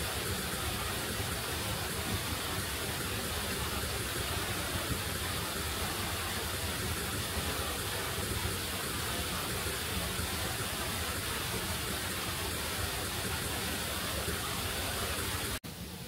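Steady rushing of heavy storm rain, with no single strikes standing out. It cuts off abruptly near the end and gives way to a quieter hiss.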